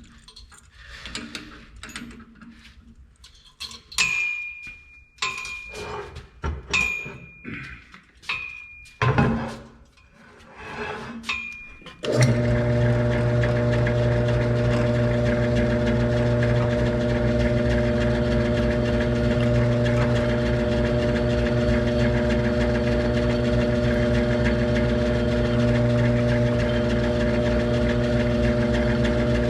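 Scattered metal clinks and knocks, several with a short high ring. About twelve seconds in, a variable-speed drill press motor starts suddenly and runs with a steady hum while small holes are drilled.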